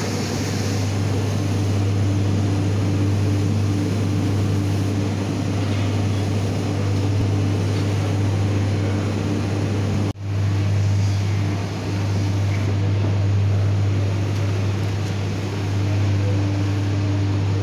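Steady low machine hum with fan-like noise. It drops out for an instant about ten seconds in and then resumes.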